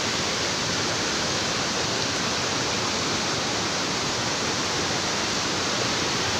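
Waterfall crashing down, a loud, steady rush of falling water without a break.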